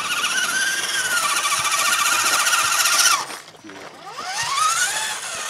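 Electric motor of an RC model truck whining as it drives: a high, slightly wavering whine cuts off sharply about three seconds in. It is followed by a rev that rises and falls in pitch near the end.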